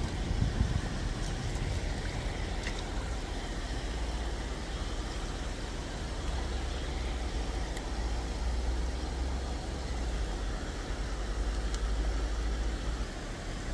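Steady outdoor background noise: a low rumble under an even hiss, with a few faint clicks.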